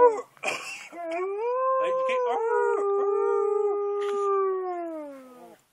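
A wolf-like husky-type dog and a man howling together. After a short breathy burst, one long howl rises slightly, holds steady, then slides down in pitch and fades out near the end.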